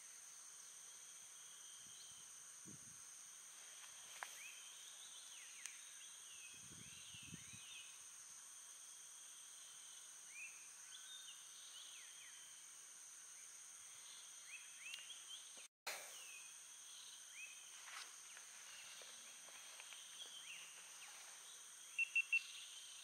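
Faint swamp-side insects buzzing steadily at a high pitch, with scattered short bird chirps and whistles over them and a quick run of three louder notes near the end.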